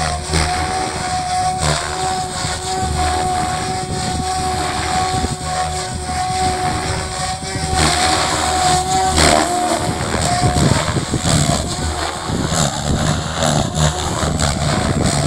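SAB Goblin 570 electric RC helicopter in 3D flight: a steady motor and gear whine over rotor blade noise. The whine wavers and breaks up about nine to ten seconds in.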